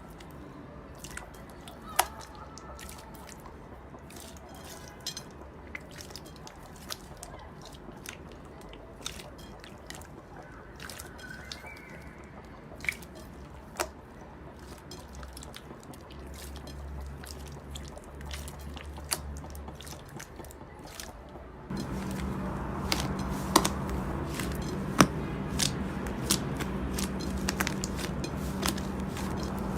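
Slime being squeezed, stretched and poked, giving scattered sticky clicks and wet pops. About two-thirds of the way through it changes suddenly to a louder stretch with a steady low hum under denser clicking.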